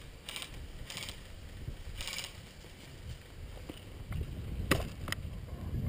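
Footsteps crunching over grass and wood-chip mulch, with rustle of gear carried by the walker. Near the end come two sharp clicks about half a second apart.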